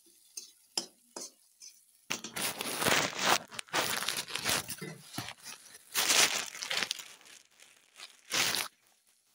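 Plastic bag crinkling and rustling close to the microphone, in loud irregular bursts starting about two seconds in and stopping shortly before the end.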